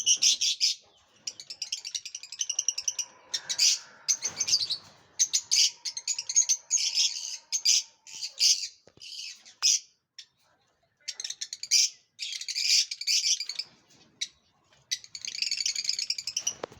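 Pet lovebirds chirping in rapid trains of short, high, shrill calls, coming in bursts with short pauses between them.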